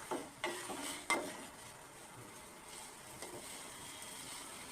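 A utensil stirring ginger, lemongrass and kencur in a pot of boiling water, knocking against the pot a few times in the first second or so, then a steady hiss of the water at the boil.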